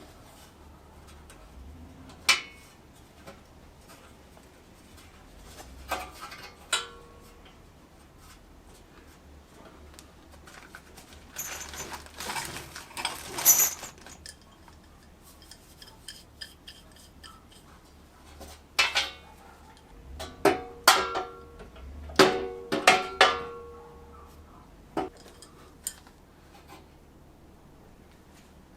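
Metal tools and parts clinking and clattering during hand work on a drill press pulley assembly: scattered sharp knocks, some with a short ring, a scraping, rustling stretch around the middle, and a quick run of clinks in the second half.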